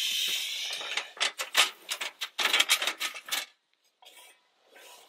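Metal fire-pit parts and a perforated grate clattering as they are handled and stacked on a folded spatter sheet: a rustling scrape at first, then a run of metal clanks and clinks for a couple of seconds.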